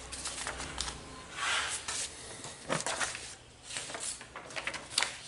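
Sheets of paper rustling and sliding as the worksheet is changed, in several short bursts with a few light knocks.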